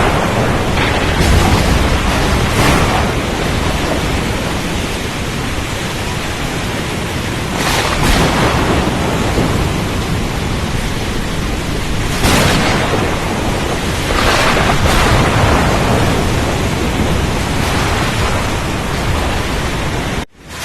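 Storm on the open sea: a loud, dense roar of wind, waves and rain with a low rumble underneath, swelling in surges every few seconds. The sound drops out for an instant just before the end.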